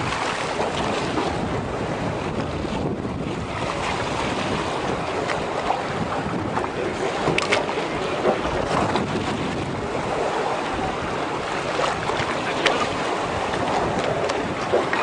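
Wind buffeting the microphone over sea water sloshing against the hull of a small aluminium boat, with a few sudden splashes from a big fish held alongside.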